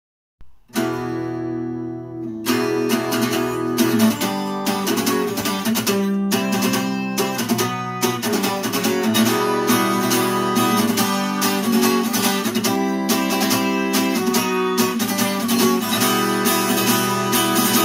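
Acoustic guitar intro to a song: a chord rings out about a second in, then steady rhythmic strumming starts about two and a half seconds in.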